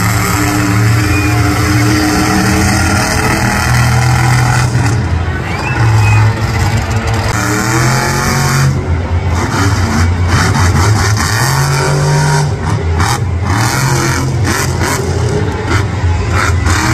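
El Toro Loco monster truck's supercharged V8 engine running loud, revving up and easing off again and again as the truck drives and turns on the dirt.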